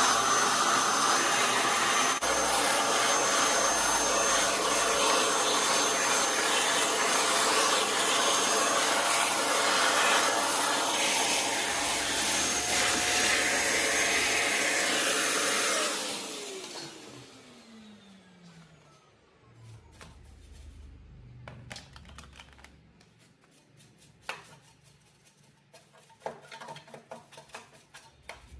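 An electric blower motor runs with a loud, steady rush of air, then is switched off about 16 seconds in, its whine falling in pitch as it spins down. Faint clicks of handling follow.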